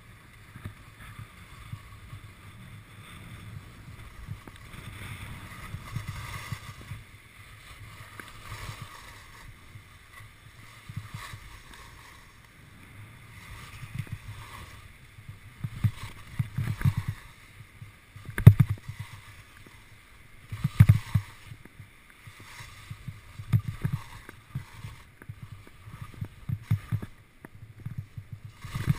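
Skis scraping and sliding over packed snow and moguls, a steady low rumble broken by sharp knocks as the skis hit bumps. The knocks come more often in the second half, loudest about 18 and 21 seconds in.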